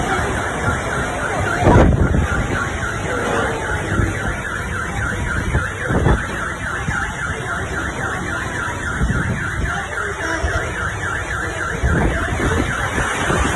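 Car alarm sounding with a fast, evenly repeating electronic chirp, over heavy wind buffeting the microphone in gusts during a rainstorm.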